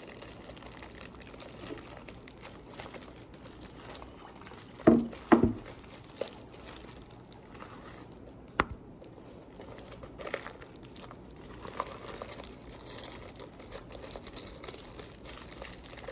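Paper and packaging crinkling and rustling as mail is handled and unpacked, with scattered crackles and two louder knocks about five seconds in.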